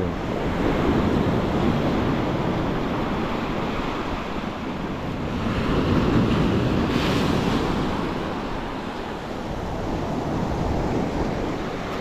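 Sea waves washing onto the shore in a continuous rush that swells about six seconds in and eases off near nine seconds. Wind rumbles on the microphone throughout.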